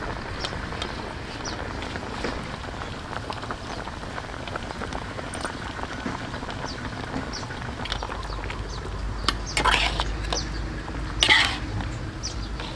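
A wok of pig stomach braising in coconut juice, simmering with a steady bubbling crackle. Near the end a ladle stirs the pot, with two louder stirring sounds.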